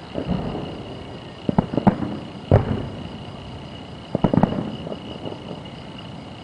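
Aerial firework shells bursting about three miles away, their bangs arriving muffled and echoing. A low rumble comes just after the start, then a quick cluster of sharp reports about a second and a half in. The loudest single bang comes about two and a half seconds in, and another rapid cluster a little after four seconds.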